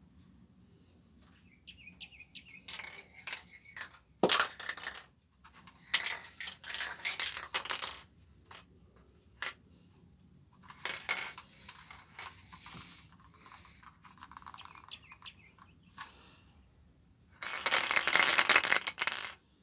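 Aerosol spray-paint can being shaken in bursts, the mixing ball rattling and clinking inside it, with a sharp click about four seconds in. The longest and loudest shake comes near the end and lasts about two seconds.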